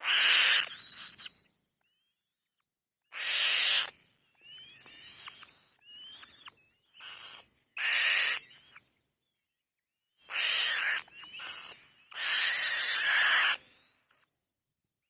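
Young birds of prey calling at the nest: five harsh, loud screeching calls, with thin rising whistles between them.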